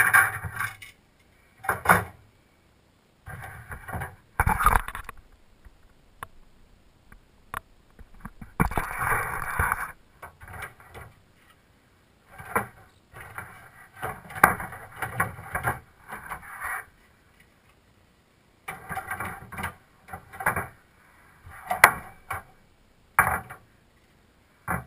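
Hard plastic wall panels of a Walt Disney World Polynesian Resort monorail playset being handled during teardown: irregular scrapes, clacks and rattles as the pieces are lifted, moved and set down, with short silent gaps between them.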